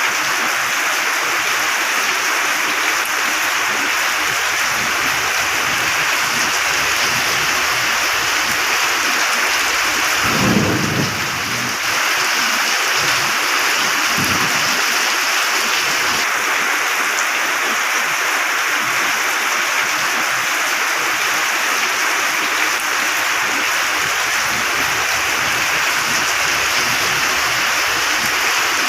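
Steady heavy rain, with a low rumble of thunder about a third of the way through and a fainter one shortly after.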